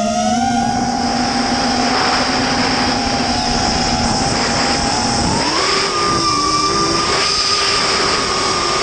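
Multirotor drone's electric motors and propellers whining steadily. The whine steps up to a higher pitch about five seconds in as the motors speed up.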